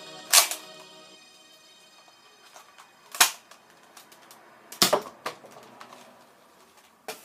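Sharp plastic clacks and clicks from a Nerf AccuStrike Falconfire blaster being handled: about six separate clicks spread unevenly, the loudest about a third of a second in and about three seconds in.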